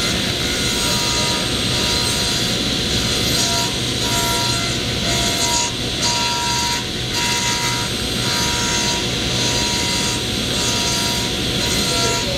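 Table saw running and cutting continuously into the edge of a glued-up hardwood table top as the round blank is turned on a circle-cutting jig. A steady motor and blade drone, with a higher tone that comes and goes about every second as the blade bites.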